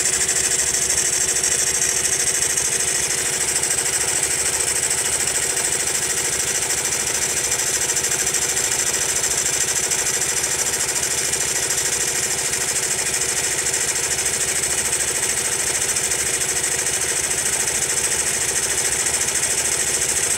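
Honda Monkey's small single-cylinder four-stroke engine idling steadily, carrying an abnormal mechanical noise that a tappet (valve clearance) adjustment has not cured.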